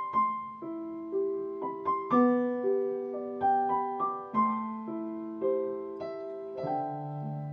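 Slow, gentle piano background music: single melody notes struck about every half second over held lower notes, with a deeper chord coming in near the end.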